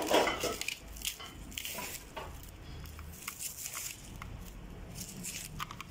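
Kitchen handling noise: a rustle at the start, another about two seconds in, and scattered light clicks over a low steady hum.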